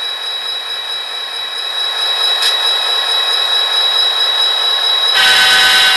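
Sound decoder in a model SD40T-2 diesel locomotive playing its diesel engine sound through the model's small onboard speaker, getting louder about two seconds in as the volume is turned up, which is then called pretty loud. A short louder burst with a pitched tone comes about five seconds in.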